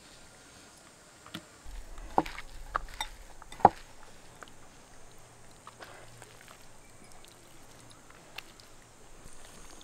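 Hands handling food at a table: a few sharp clicks and knocks, the loudest about two and three and a half seconds in, then faint scattered ticks and rustling as chopped herbs are scooped from a bowl and pressed into a spice-rubbed fish.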